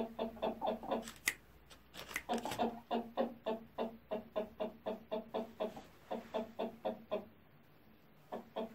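Aseel chicken clucking in quick runs of short low clucks, about five a second. The runs break off briefly between one and two seconds in and again for over a second near the end before starting up. A few sharp clicks sound around one to two seconds in.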